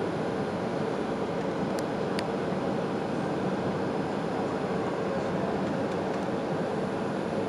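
Steady cabin noise inside a Boeing airliner on descent: the even rush of jet engines and airflow with a constant hum. Two faint ticks come about two seconds in.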